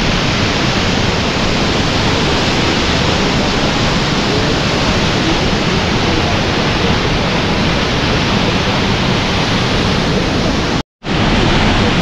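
The Pailón del Diablo waterfall, a steady, loud rush of falling water heard close up from the viewing platform. The sound cuts out completely for a fraction of a second near the end.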